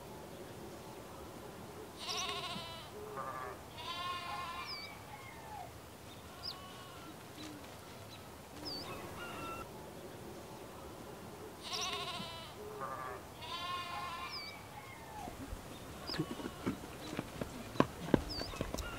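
Sheep and goats bleating: several quavering bleats in two bunches, with a few short bird chirps over a steady outdoor hiss. Near the end, footsteps on a dirt path with sharp knocks.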